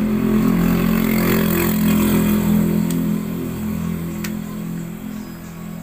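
Rewound single-phase capacitor electric motor running on a test, giving a steady mains hum that eases off after about three seconds, with two sharp clicks.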